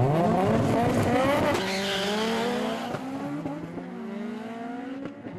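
Drag race cars launching off the start line, engines revving hard and rising in pitch, with a drop in pitch at each gear shift (twice) as they pull away and fade. A short tyre squeal comes about two seconds in.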